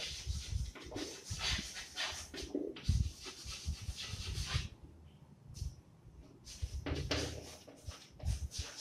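Chalk writing on a blackboard: a run of short, scratchy strokes and light taps of the chalk. They stop for about two seconds past the middle, then start again.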